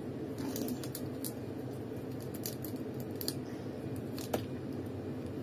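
Small plastic soy sauce sachet crinkling and clicking as fingers pinch and pull at it to tear it open: it has no tear notch. Scattered light crinkles, with a sharper click about four seconds in, over a steady low hum.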